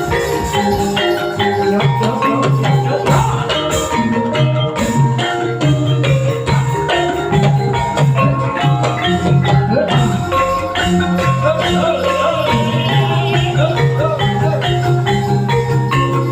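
Javanese gamelan music for a kuda lumping dance: metallophones ringing out quick, steady pitched notes over dense percussion, with a gliding melodic line now and then.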